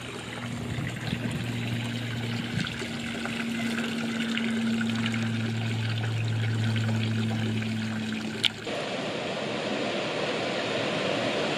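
Rushing air and tyre noise from riding the Pro Rider GRID electric bike, with a steady low hum underneath. About eight and a half seconds in there is a sharp click; the hum stops and a fuller, steady rushing noise carries on.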